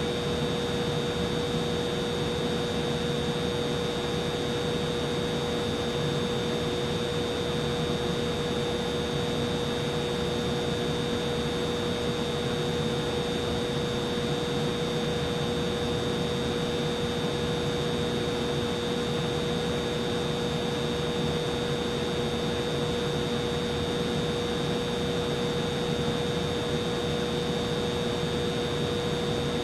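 Humidifier fan motor running steadily: an even airy whir with a constant mid-pitched hum and a fainter high whine.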